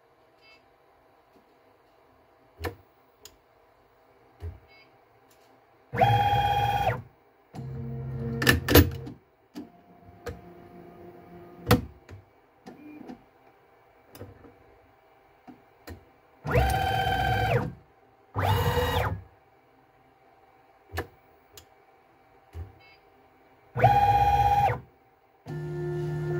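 Stepper motors of a DIY CNC mill and its automatic tool changer working in separate moves, each a pitched whine with overtones lasting about a second, four loud ones in all, with softer lower runs and sharp clicks and knocks of the tool holders between them.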